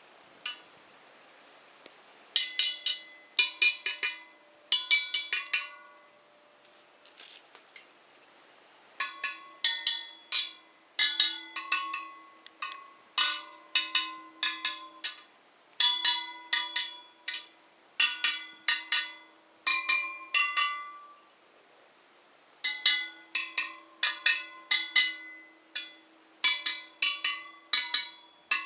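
Pitched metal chimes struck in quick groups of four or five ringing notes with short pauses between the groups, as a mechanism plays them through before disassembly.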